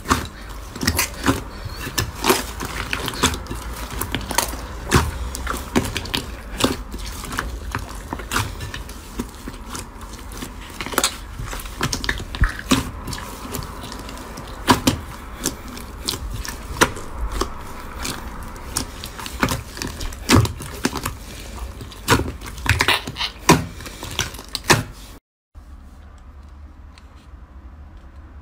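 Slime being squished and stretched, giving an irregular run of sticky clicks and pops. Near the end it cuts off briefly, and a quieter stretch of faint clicking follows.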